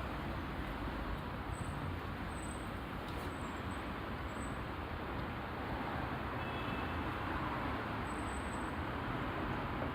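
Road intersection ambience: steady traffic noise of cars running through, with faint short high tones now and then.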